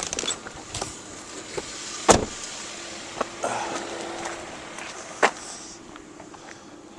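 Handling noises in a stopped car: two sharp knocks, about two seconds in and again about five seconds in, with rustling over a steady hiss.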